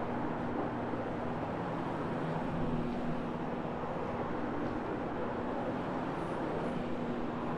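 Rotary floor machine running steadily, its motor humming as the pad scrubs over the carpet.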